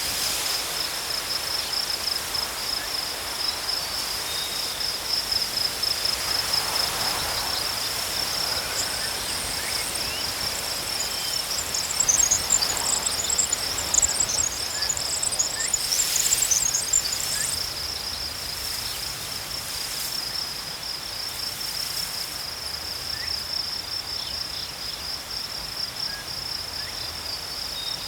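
Insects trilling steadily in a continuous high pulsing band, with birds chirping in short scattered bursts above it through the middle. A soft hiss of wind in tall grass runs underneath.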